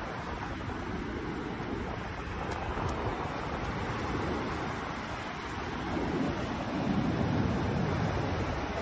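Ocean surf washing up on a sandy beach, mixed with wind buffeting the microphone; the noise swells about six seconds in.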